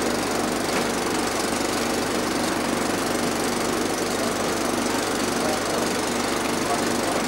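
Boat engine running steadily at idle, a close, even mechanical rumble with a rapid knocking beat and a steady hum.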